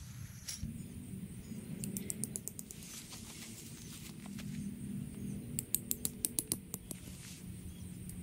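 Two runs of light, rapid clicking, about two seconds in and again midway, with faint rustling between: tent stakes and their stake-out hardware being handled while the tent is pegged out at its corner points.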